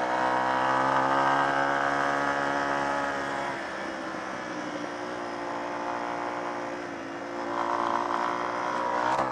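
Small old motorcycle engine running steadily under way, easing off about a third of the way in and picking up again near the end.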